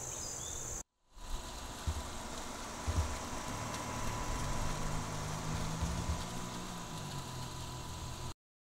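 Insects buzzing in a high steady band for under a second, cut off abruptly. Then steady outdoor noise with a low motor vehicle engine hum that swells a little in the middle.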